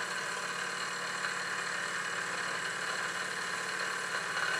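Small twin oscillating-cylinder model steam engine running steadily on live steam, with a fast, even beat.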